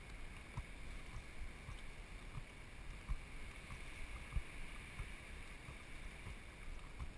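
Water lapping and trickling faintly against a drifting kayak's hull, steady, with a few soft knocks every second or two.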